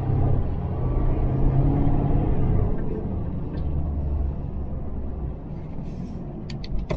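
Ford Crown Victoria Police Interceptor's 4.6-litre V8 engine and road noise heard from inside the cabin while driving, a steady low drone; the engine is running smoothly on freshly replaced spark plugs. A few short clicks near the end.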